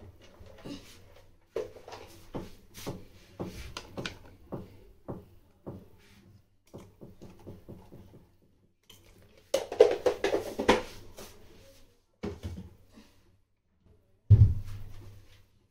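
Kitchen containers being handled on a countertop: a run of irregular clicks and knocks, a louder rattling clatter about ten seconds in, and one heavy thump near the end.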